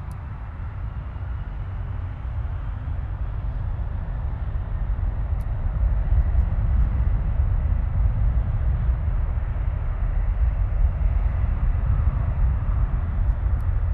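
Twin-engine Boeing 767 jet engines running as the airliner moves past on the ground: a deep, steady rumble with a fainter hiss above it, growing gradually louder.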